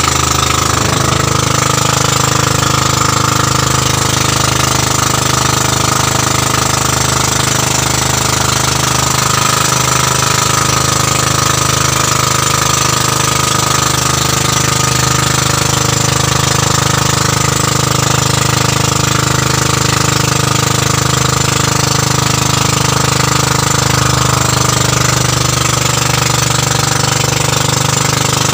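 Pumpboat engine running steadily under way, a loud, even engine note that holds at one speed throughout.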